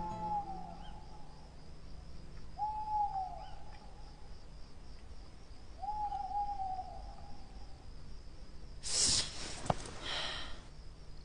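An owl hooting three times, each hoot about a second long and falling off at the end, a few seconds apart, over a faint steady insect trill. Near the end, a louder short burst of noise with a sharp click in it.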